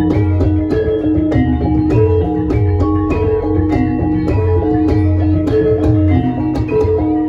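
Javanese gamelan playing lengger dance accompaniment: bronze metallophones struck in a steady pulse of about two strokes a second, with ringing sustained notes over a low drum.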